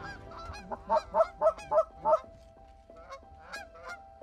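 Canada geese honking: a quick run of about six loud honks in the first two seconds, then fainter, scattered honks.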